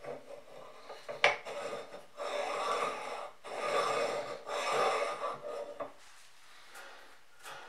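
Knife carriage of a 1970s Kity 642 planer-knife sharpener pushed back and forth by hand along its rusty steel guide rods. There is a sharp metal click about a second in, then three scraping strokes of metal rubbing on rusty metal.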